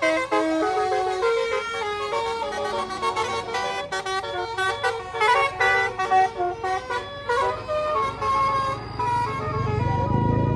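A tour bus's basuri multi-tone melody horn (a "telolet" horn) playing a quick tune of stepped notes, ending on one held note near the end. A bus engine runs low underneath.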